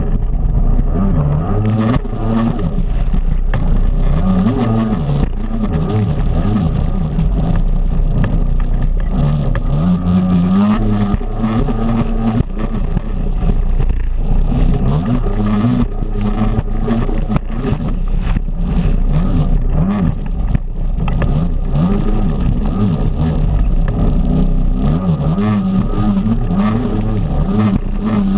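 Jet ski engine racing, its pitch rising and falling continually as the throttle is worked, with water spray and repeated splashes hitting the craft.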